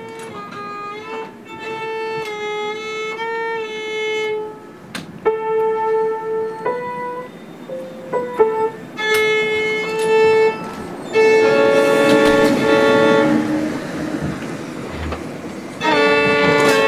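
Solo violin played with the bow: long held notes, mostly on the same pitch, with short breaks and a few brief changes of note between them.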